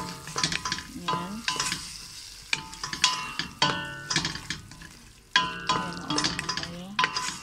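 Wooden spoon stirring and scraping beef, onion and spices around a stainless steel pot as they fry and sizzle, in repeated strokes. The stirring lulls a little past halfway, then starts again abruptly.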